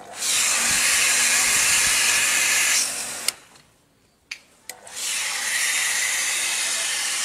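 Water jet from a pressure-washer spray gun, fed by a two-outlet electric water pump, hissing steadily. It cuts off about three seconds in, with a few sharp clicks, and starts again about two seconds later.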